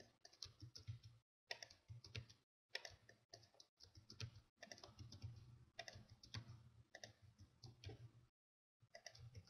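Faint, irregular clicking of a computer mouse and keyboard.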